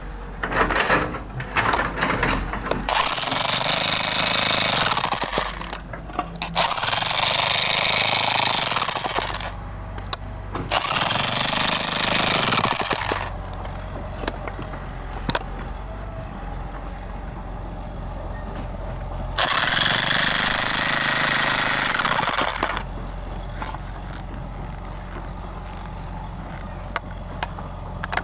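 Jackhammer breaking up hard ground in bursts of two to four seconds, starting and stopping four times. A steady low hum continues between the bursts.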